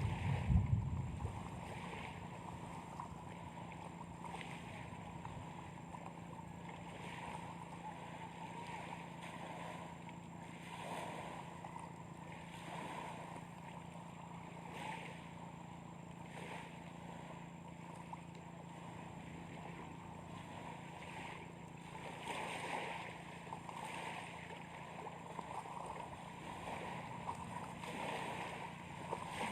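Steady wash of wind and lake waves, with soft swells every second or two.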